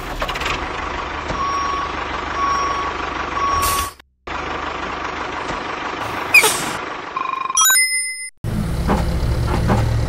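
Truck engine sound effect running steadily with a reversing beeper beeping about once a second. After a short cut, the engine runs on, with a whoosh, a quick rising run of electronic beeps, a moment of silence and then a louder engine rumble.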